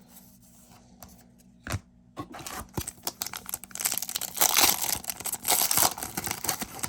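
Plastic wrapper of a football trading-card pack being torn open and crumpled, a dense crackling run that starts about two seconds in after a single tap.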